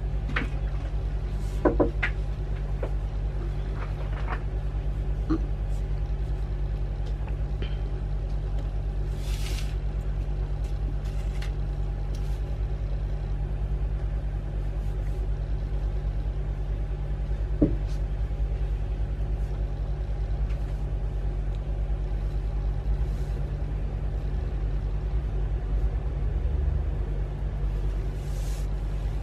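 A steady low hum, with a couple of faint sharp clicks and two brief high hisses.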